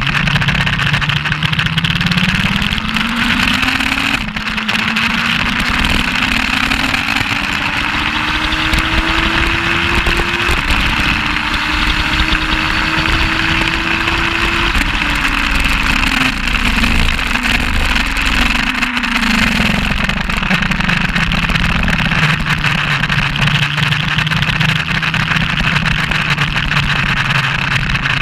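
Race motorcycle engine, the Suzuki GS1200SS, accelerating hard with gear changes about four seconds in and again near the middle, held at high revs, then falling in pitch as the throttle closes and staying at lower revs for the rest. Heavy wind rush over the microphone throughout.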